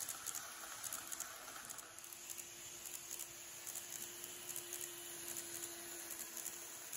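Model 583 series sleeper train running on layout track: a light, irregular clatter of small wheels over the rail joints, with a faint steady motor hum that stops just before the end.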